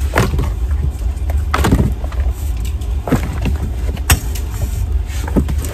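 Rummaging through a bin of children's shoes: soft knocks and rustles as shoes are handled and set down, with a sharp click about four seconds in, over a steady low rumble.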